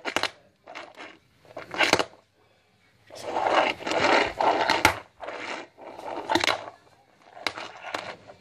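Tech Deck fingerboard clacking and scraping on a wooden tabletop as pop shove-its are tried: several sharp clacks, with a longer stretch of scraping about three seconds in.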